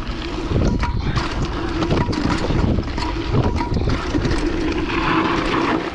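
A mountain bike ridden fast down a rough dirt trail: wind buffets the microphone, tyres rumble over dirt and stones, and the bike clatters with frequent sharp knocks.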